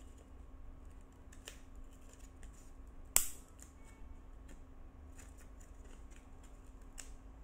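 Large metal nail clipper cutting through thick five-layer paper: one loud, sharp snap about three seconds in, with fainter clicks before and after.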